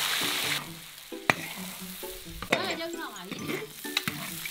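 Pork and vegetables being stir-fried in a large iron wok. A loud sizzle drops off sharply about half a second in, leaving a quieter sizzle under the metal spatula's clanks and scrapes against the wok.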